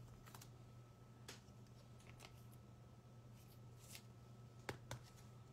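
Near silence with a few faint ticks and light rustles of baseball trading cards being handled and slid against each other, two of the ticks close together near the end, over a faint steady room hum.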